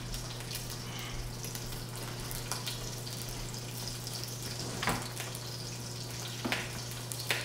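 Skin-on salmon fillets searing skin-side down in olive oil in a pan over medium-high heat, giving a steady sizzle as the skin crisps. A low steady hum runs underneath, with a few faint knocks in the second half.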